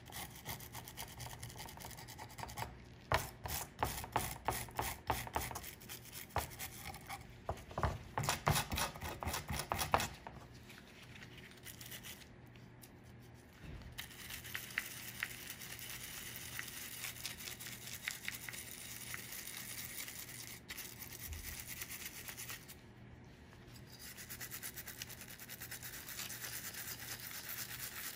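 A small stiff-bristled brush scrubbing rust and grime off a vintage rusty metal bottle opener in quick back-and-forth strokes. The strokes are loudest and most distinct in the first third, then settle into a steadier, softer scrub with brief pauses.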